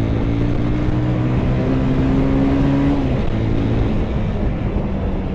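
Bajaj Pulsar 220F's single-cylinder engine running under way, its pitch climbing slightly and then dropping about three seconds in, over a steady rush of wind and road noise.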